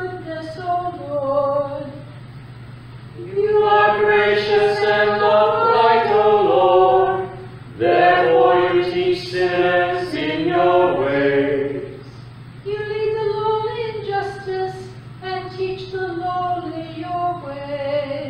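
A small group of church singers chants a psalm verse by verse. The singing is softer at first, fuller and louder through the middle, then softer again near the end. A steady low hum runs underneath.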